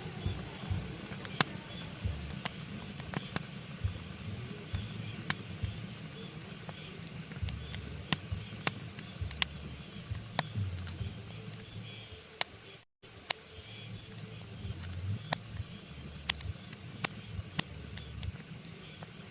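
Pine logs burning in a fireplace, crackling with frequent, irregular sharp pops over a low rumble of the flames and a faint steady hiss. The sound drops out for an instant about thirteen seconds in.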